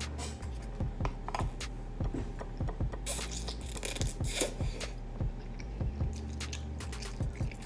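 Close-up eating sounds: chewing a mouthful of ramen noodles with many small wet clicks and smacks, and two short slurps about three and four seconds in.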